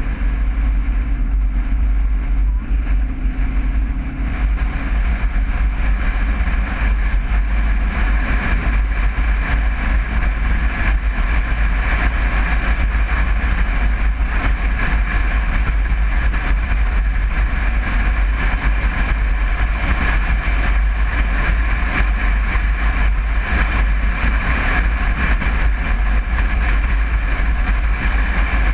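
A 1961 Volkswagen Bus driving at a steady speed: the air-cooled flat-four engine running under steady load with road and wind noise and a constant deep rumble.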